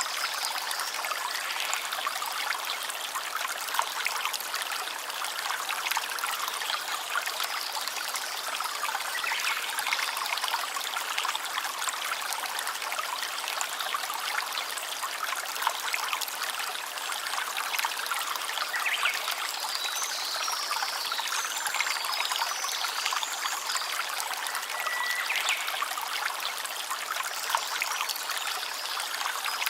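Small stream trickling and splashing steadily over rocks.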